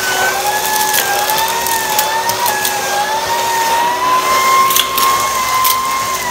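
Numatic Henry cordless vacuum running with a spinning-brush floor head pushed over a rug: steady suction rush and a two-pitched whine that drifts slowly upward, with a few light clicks. The brush is struggling to spin on the cordless machine's low suction.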